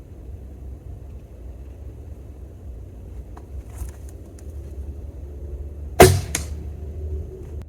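A recurve bow shot: a sharp loud crack as the string is released, then a second sharp hit about a third of a second later as the arrow strikes the stump, followed by a short lingering hum. A few faint clicks come before the shot, over a steady low rumble.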